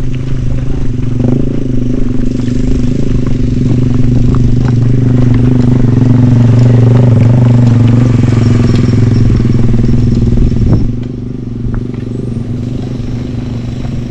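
Motor vehicle engine running steadily, with scattered rattling clicks. It grows louder through the middle and then drops off sharply about eleven seconds in.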